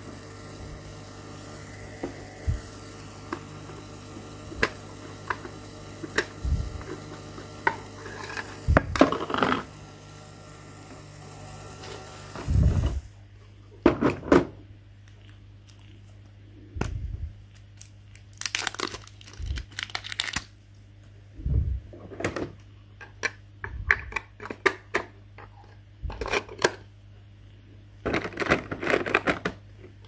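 Close handling of a small pink plastic toy: a screwdriver clicking as it turns out a battery-cover screw, then scattered taps, knocks and rattles of hard plastic as parts are picked up, set down and the battery cover is lifted off. A steady low hum runs underneath.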